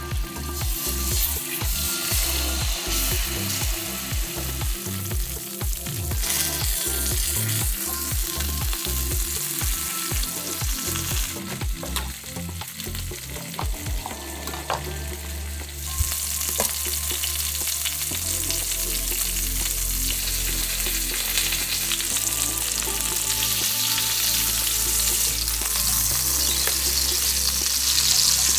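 Chicken breast frying skin side down in olive oil in a stainless steel pan, a steady sizzle. The sizzle gets brighter and louder in the second half, with butter foaming in the pan.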